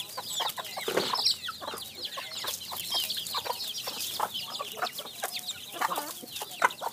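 A flock of chickens clucking and calling non-stop while they crowd in to eat scattered food, with many overlapping short, high calls and scattered clicks.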